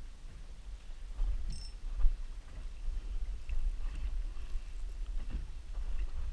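Steady low rumble of wind on the microphone and water slapping against a small boat's hull, with a few light knocks about a second in, around two seconds, and again after five seconds.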